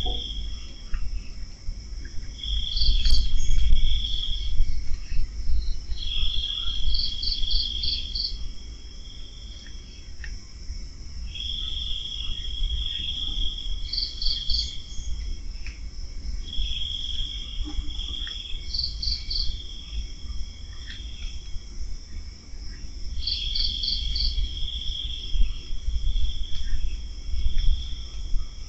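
Night insects chirping in a steady high chorus. One insect repeats a trill of about two seconds, followed by a few quick higher chirps, roughly every five seconds, over a low rumble.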